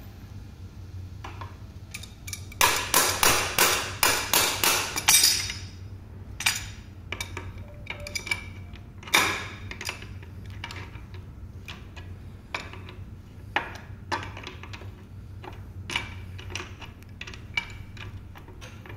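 Metal clicking and clinking of a socket wrench on a scooter's front axle nut as the nut is tightened to refit the front wheel: a quick run of loud clicks about three to five seconds in, then scattered lighter clicks.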